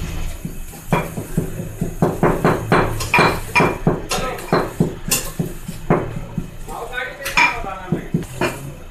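Pestle pounding in a metal mortar: repeated sharp metallic knocks, about two to three strokes a second, starting about a second in.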